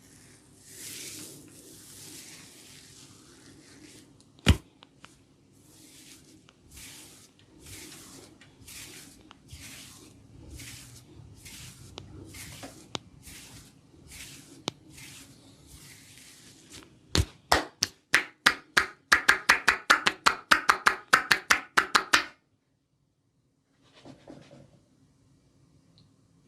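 Head massage: hands rubbing through oiled hair in soft, regular strokes, with one sharp crack about four seconds in. Then a fast run of loud slaps, the hands chopping and tapping on the head for about five seconds, which stops abruptly.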